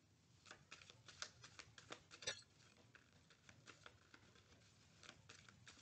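Near silence: room tone with a scattering of faint small clicks and ticks in the first half, the clearest just after two seconds in.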